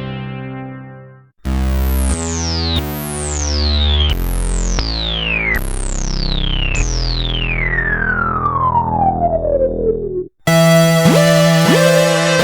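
Sequential Circuits Prophet VS vector synthesizer playing: a held sound fades out, then a run of five low bass notes, each with a bright whistling sweep falling in pitch, the last sweep slower and longer. After a brief break near the end, a new sustained sound starts with two quick upward blips.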